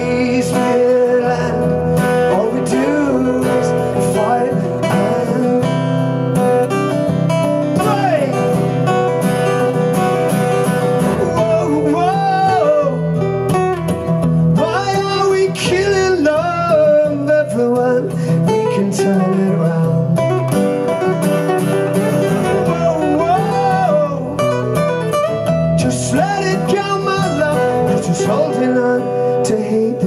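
Live acoustic duo: two acoustic guitars playing a country-folk song, one strumming chords while the other picks a melody line, with a man singing.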